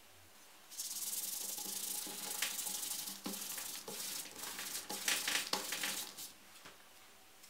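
A crumpled wad rubbed briskly back and forth over a dyed leather panel: a rough, scratchy hiss of buffing with a few sharper, louder strokes. It starts just under a second in and stops about a second before the end.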